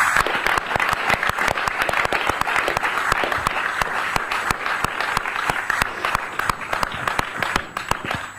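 Audience applauding, dense clapping that thins out near the end.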